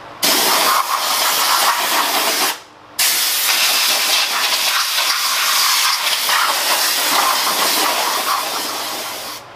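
Compressed-air blow gun hissing as it blasts dust and loosened rust off a cast-iron lathe faceplate: a blast of about two seconds, a short break, then one long blast of about six seconds.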